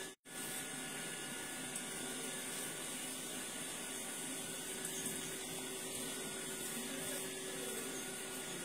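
Steady, even hiss with a faint low hum underneath, and no voices; it cuts out briefly just after the start.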